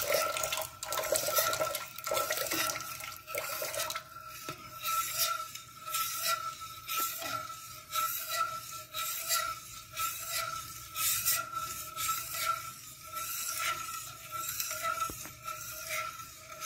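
Stainless steel spoon stirring and scraping around a stainless steel pot of oils as lye water is mixed in for cold-process soap, with liquid swishing. The scrapes repeat about once a second.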